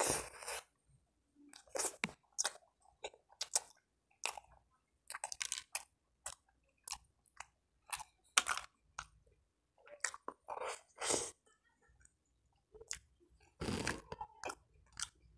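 Mouth chewing and biting into a waffle sandwich filled with a sausage and coleslaw: a bite right at the start, then irregular crunchy chewing sounds with short silences between them.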